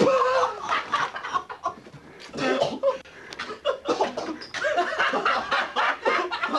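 People laughing and shrieking. A loud, high cry comes right at the start, then choppy bursts of laughter and excited voices.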